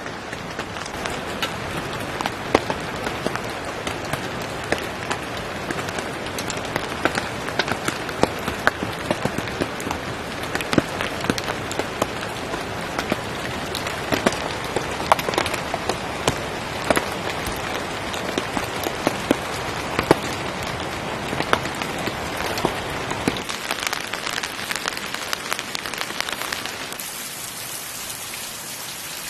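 Steady rain, with many individual drops pattering sharply close by; the sound thins out near the end.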